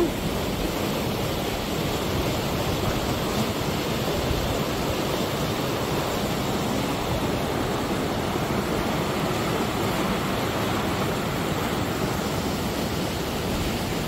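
River rapids: shallow water rushing over rocks in a steady, unbroken rush.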